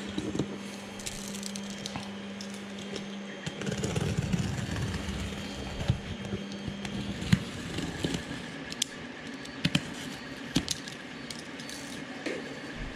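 Cardboard box and packing being handled and opened: rustling with scattered knocks and clicks. A steady low hum runs under it until about halfway through.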